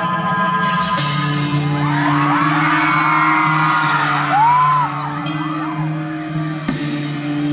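Live rock band holding a slow, sustained electric-guitar and bass intro, while audience members whoop and scream over it for a few seconds in the middle.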